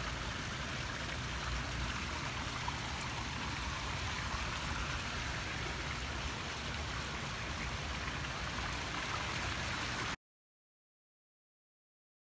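Steady splashing of water from a large public fountain. It cuts off suddenly near the end.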